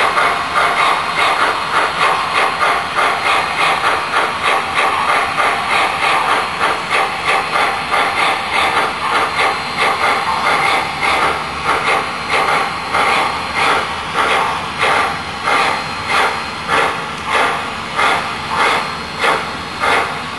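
Steam exhaust chuffing from the Proto-Sound 3.0 sound system of an MTH HO-scale Erie 2-8-8-8-2 Triplex steam locomotive: a steady beat of hissing chuffs that slows from about three a second to a little over one a second.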